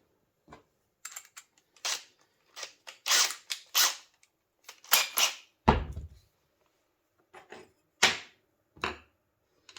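Screws, screwdriver and small metal parts being handled on a workbench: scattered sharp clicks and clinks, with one heavier knock about six seconds in.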